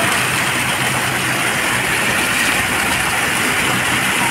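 Foam-jet fountains gushing up and splashing back into a shallow basin: a steady, loud rush of water, the jets running strong.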